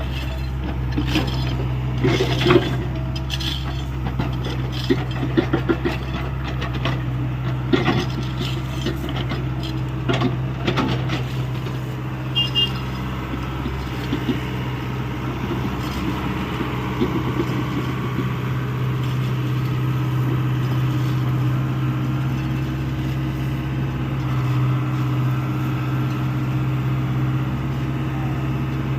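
Hyundai 85A excavator's engine running steadily with a low drone, with a series of sharp scrapes, knocks and rattles through roughly the first eleven seconds, then running on more evenly.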